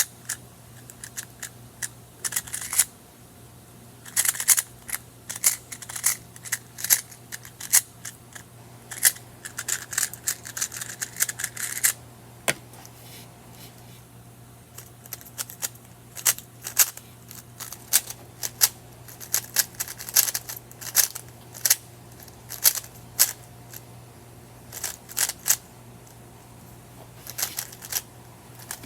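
A speed cube being turned rapidly by hand, its plastic layers clicking and clattering in quick runs with short pauses between.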